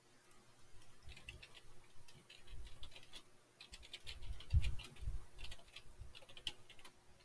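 Typing on a computer keyboard: an irregular run of quick key clicks, with a few heavier thumps about halfway through.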